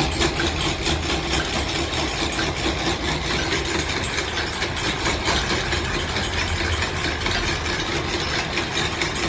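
A machine running steadily, with a constant hum and a fast, even pulsing beat.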